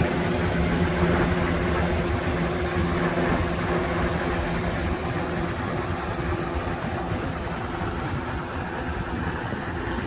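1987 Dayton (Lakewood) 4C510/A 20-inch box fan running at its highest of three speeds: a steady rush of air over a low motor hum, the hum growing fainter near the end.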